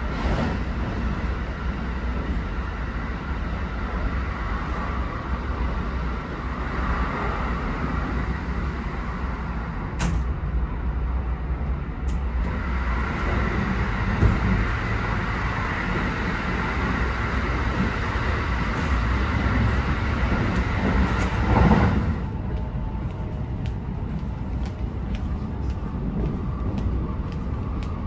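Running noise of the Kintetsu Hinotori limited-express electric train heard from inside the passenger cabin: a steady low rumble with a hiss over it. Near the end the hiss drops away abruptly, and a few faint clicks follow.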